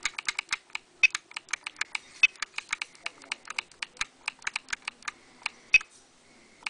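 Rapid, irregular clicking of an Etek 3 paintball marker's trigger and buttons, several clicks a second and uneven in strength, as the Ape Rampage board's menus are scrolled.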